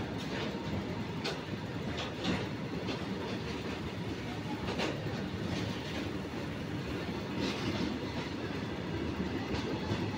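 Freight train of open hopper wagons rolling past, a steady rumble of wheels on rail with sharp clicks every second or two as the wheels cross rail joints.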